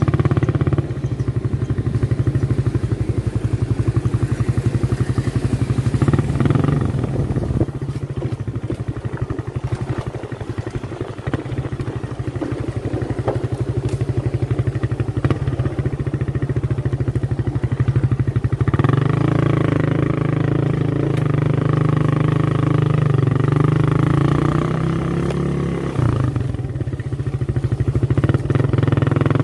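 Small motorcycle engine running steadily as the bike rides along a rough dirt track. The engine note gets louder and fuller about two-thirds of the way through, dips briefly, then picks up again near the end.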